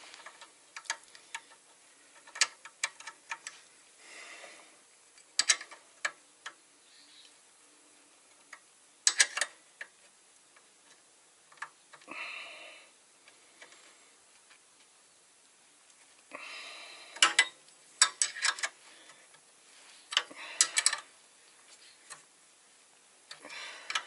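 Hand wrench and pry bar clicking and clinking against metal at irregular intervals, with a few short scraping stretches, as a belt-tensioning bolt is tightened while the pry bar holds the belt tight.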